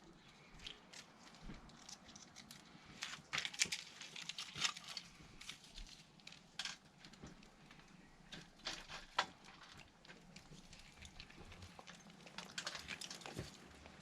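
Faint, irregular crackles and rustles of birch bark and kindling being handled and set alight for a small fire.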